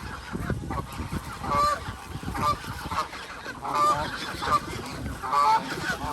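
Geese honking repeatedly, several short calls in quick succession.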